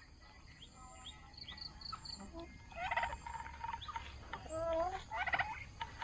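Turkey gobbling in a poultry pen: two rapid, warbling gobbles about three and five seconds in, with fainter short chirps and calls from the other birds between them.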